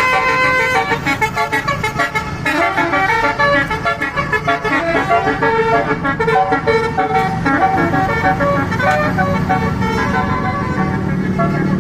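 Bus telolet horn playing a quick, changing melody of short horn notes, over road traffic noise.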